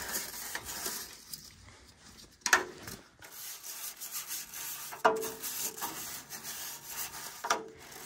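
Nylon bristle brush scrubbing between the tubes of an NTI TX-151 condensing boiler's heat exchanger, loosening dust and deposits. A scratchy rasping in repeated back-and-forth strokes, with three louder scrapes about every two and a half seconds.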